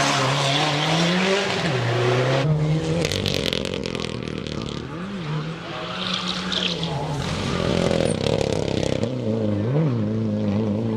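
Rally car engines run hard as cars pass through corners one after another, the pitch climbing and dropping with gear changes and quick throttle blips, with tyre noise under the engines.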